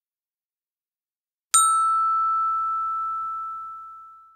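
A single bell-like ding about a second and a half in: one clear ringing tone with fainter higher overtones, dying away slowly over about three seconds.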